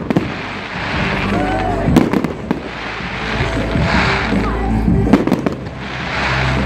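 Fireworks display going off: many quick bangs one after another and swelling crackle every couple of seconds.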